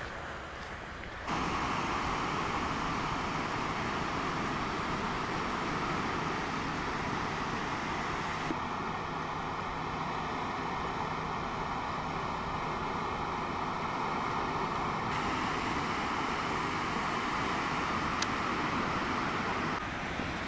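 Ocean surf washing on a sandy beach, with wind rumbling on the phone's microphone; the noise jumps louder about a second in and then holds steady.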